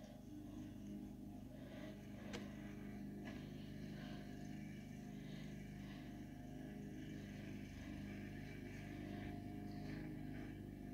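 Quiet room tone: a steady low electrical or appliance hum, with one small click a little over two seconds in.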